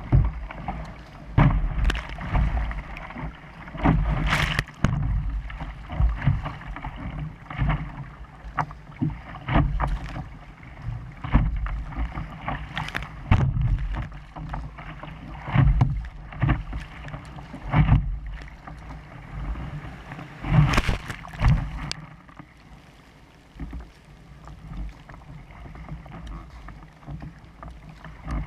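Water splashing and rushing against a sit-on-top kayak's hull as it is paddled through breaking surf, with paddle strokes splashing every second or two over a low rumble of wind on the microphone. The splashing eases near the end.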